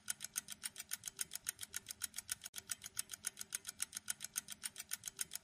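Countdown-timer sound effect: quiet, rapid clock-like ticking, about five ticks a second, steady throughout.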